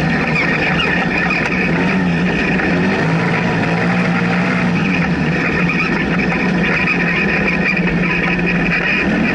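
Polaris RZR side-by-side's engine running hard at speed, heard from inside the cockpit, its note steady with a couple of brief dips.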